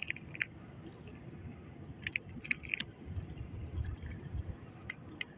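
Low rumble of wind and water around a small boat, with a few short clicks and wet squishing from hands handling a freshly caught fish and fishing line, in clusters near the start, about two seconds in, and near the end.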